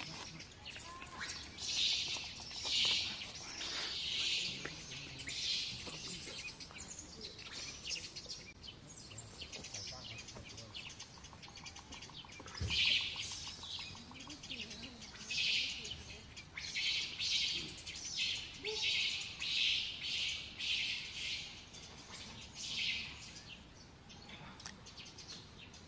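Short high-pitched calls, repeated about once a second in runs with short pauses, from an animal that cannot be identified.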